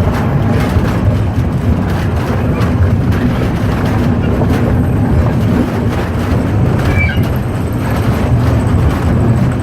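Steam train running along the rails: a steady, loud low rumble with constant rattling.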